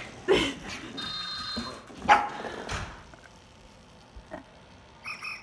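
Shiba Inu puppy barking at a toy, three sharp yipping barks in the first three seconds, with a short high electronic tone from a Zhu Zhu Pet toy hamster between the first two barks.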